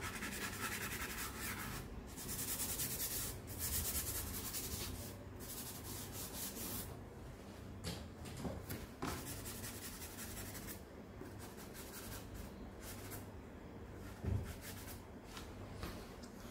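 Fingers rubbing and blending charcoal on drawing paper: a dry scrubbing in uneven strokes, heaviest in the first few seconds and more sporadic later. There is one soft knock about two-thirds of the way in.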